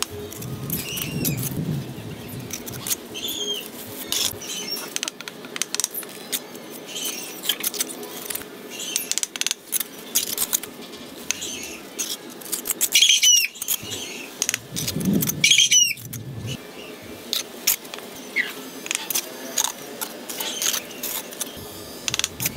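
Bricklaying with a steel trowel: a steady run of sharp clicks, knocks and scrapes as mortar is spread and bricks are set and tapped into place. Twice past the middle there are short high squeaks.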